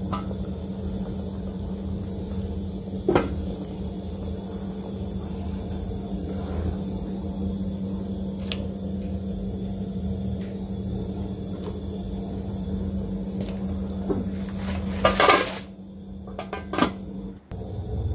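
Aluminium cooking pot and its metal lid knocking and clattering over a steady low hum. There is a single knock about three seconds in and more later. The loudest is a rattling clatter of the lid against the pot about fifteen seconds in, followed by a couple of quick knocks.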